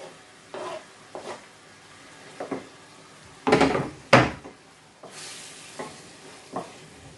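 Onions frying in a stainless steel pan on a gas hob with a soft sizzle and light knocks of food and utensils. About three and a half seconds in, a plastic chopping board is set down on the hob's grates: two loud sharp knocks, the loudest sounds here.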